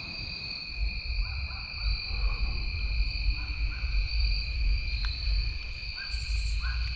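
Steady chorus of insects trilling as two constant high-pitched tones, over a low rumble.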